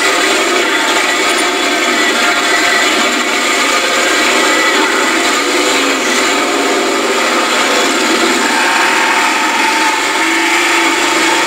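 4x4 mud truck's engine running loud and steady under throttle, heard from inside the roll-caged cab, with its pitch shifting near the end.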